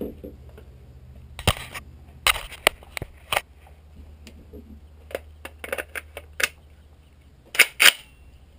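A scattering of sharp clicks and knocks, about a dozen at irregular intervals, the loudest two close together near the end, over a low steady hum.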